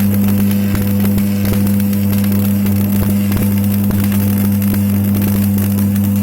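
Stick (shielded metal arc) welding of a steel butt joint with a flux-coated electrode: the arc crackles and spits in irregular clicks over a loud, steady hum from the welding machine.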